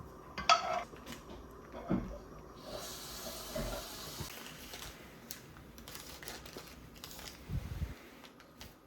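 Kitchen handling sounds: a sharp ringing clink of dishware about half a second in, a knock, a few seconds of hissing like running water, and a dull thud near the end.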